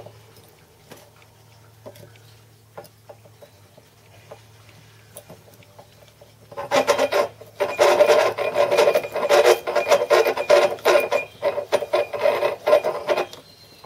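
Small twist drill in a hand-cranked drill being turned into a cast aluminium base: faint scattered clicks at first, then from about halfway a loud, rapid scraping as the bit cuts, which stops shortly before the end.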